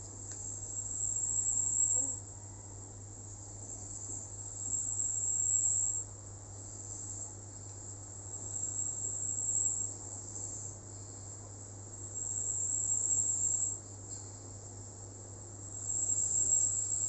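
Slow, rhythmic snoring: each breath is a hissy, whistling sound that builds and then cuts off sharply, about once every four seconds. A steady low hum runs underneath.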